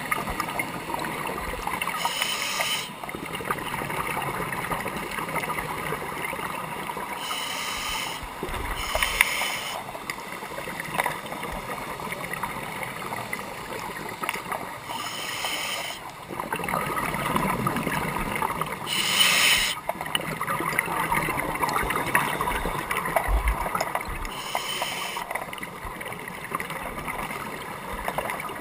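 Underwater sound of scuba diving: a steady gurgling water hiss, broken every few seconds by short hissing bursts of exhaled bubbles from a diver's regulator.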